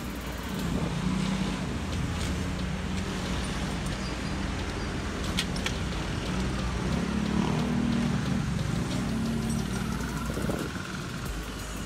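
Traffic noise: vehicle engines humming, swelling and easing as they pass. About five seconds in come a couple of light metal clinks as the motorcycle's drive chain is handled at the rear sprocket.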